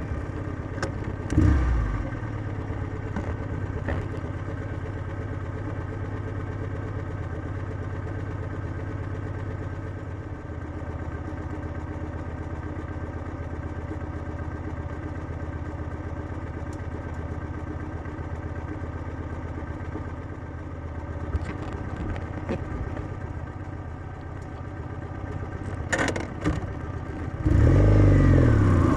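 Kawasaki W650's air-cooled parallel-twin engine with its stock exhaust idling steadily, with a couple of short clicks. Near the end it revs up loudly with rising pitch as the bike accelerates.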